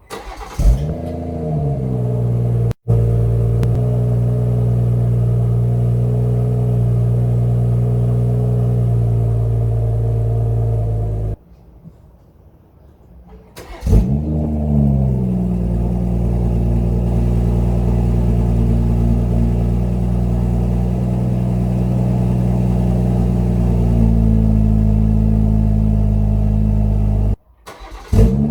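BMW M140i's 3.0-litre turbocharged B58 straight-six being started through its exhaust: the revs flare up and drop back to a steady idle. A second start about halfway through again flares, then settles to idle.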